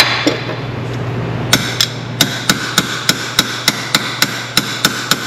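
Hammer striking metal: about a dozen quick, evenly spaced blows at roughly three a second, starting about a second and a half in, each with a short metallic ring. The hammering drives a gripping tool onto a rounded-off fastener so that it bites.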